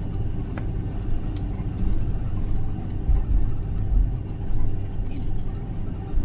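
Airbus A330 cabin noise: the steady low rumble of the jet's engines at idle as the airliner moves slowly on the ground, with a faint high whine.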